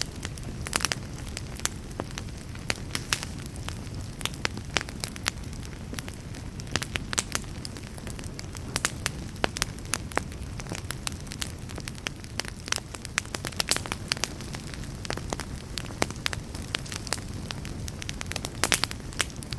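Wood fire burning with a steady low rumble and frequent irregular crackles and pops, clustered around the start and near the end.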